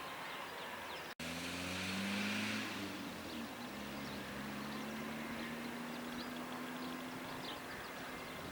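Distant aircraft engines droning in steady low tones that shift slightly in pitch about two seconds in, over faint wind noise.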